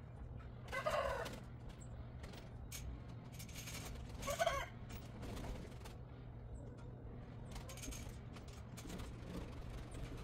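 Domestic turkey gobbling twice, two short rattling calls about a second in and again a few seconds later. Gobbling is the male's call, and the owner reckons his turkeys are probably males.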